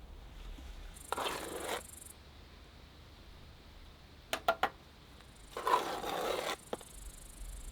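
Bricklaying work with a trowel and mortar: two rough scrapes about four seconds apart, with three quick ringing taps between them.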